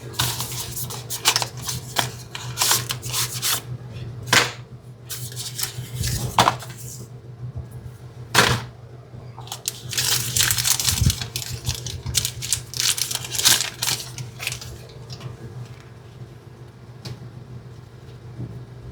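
Hands unpacking a smartphone box: irregular clicks, taps, scrapes and rustles of packaging and the phone being handled, over a steady low hum.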